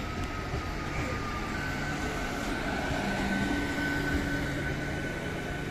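Southern Railway electric multiple-unit (EMU) local train pulling away past the platform: a steady rumble of wheels on the track, with a steady high electric whine from the traction equipment coming in about a second and a half in.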